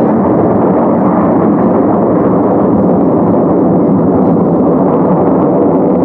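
Steady, loud roar of the Frecce Tricolori's Aermacchi MB-339 jet trainers flying in close formation through a looping climb, with no change in level.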